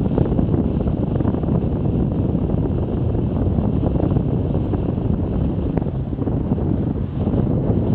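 Wind buffeting the microphone of a camera on a moving bicycle: a steady, loud rushing noise.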